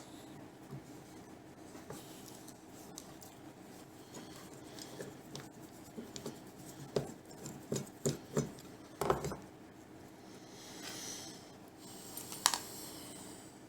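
Metal parts of a hand plane being handled and taken apart on a bench: scattered light clicks and knocks, with a brief scrape about eleven seconds in and a sharp click near the end.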